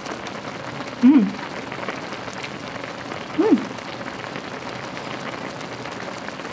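Broth bubbling at a boil in an electric hot pot, a steady crackling patter. Twice, about a second in and again about three and a half seconds in, the person eating gives a short hummed "mm" that rises and falls in pitch.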